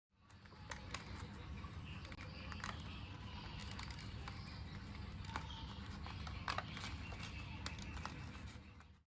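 Paper being handled: rustling and crinkling with many sharp clicks, over a low steady background rumble.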